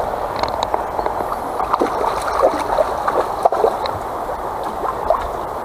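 River water running and gurgling over rocks close by, with scattered small splashes.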